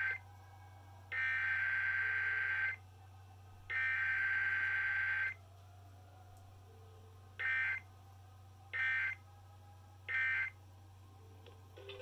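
Emergency Alert System SAME data bursts played over a radio broadcast. The last moment of one header burst is followed by two more long bursts of about a second and a half each. Then come three short bursts about a second and a half apart, the end-of-message code, over a faint low hum.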